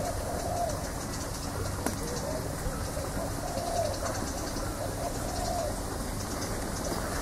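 A dove cooing over and over in soft, rounded phrases, with faint fast high chirping behind it.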